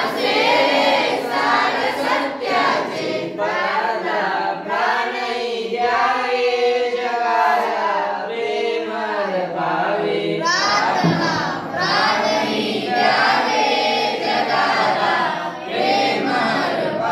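A group of children singing a Marathi prayer together in unison.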